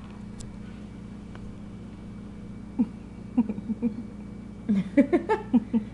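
A few faint ticks of a savannah monitor's claws on a hard, smooth floor over a low steady hum. In the last couple of seconds a woman murmurs in short, broken sounds.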